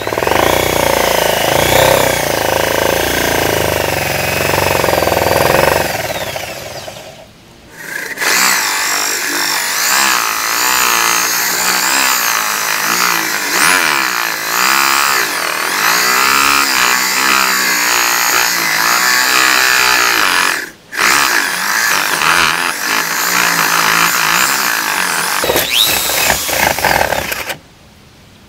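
Ryu corded electric drill boring through plywood with a 22 mm spade bit. The motor whine rises and falls in pitch as the bit bites. It eases off about seven seconds in, cuts out briefly near twenty-one seconds, and stops near the end. The 22 mm bit wobbles as it cuts.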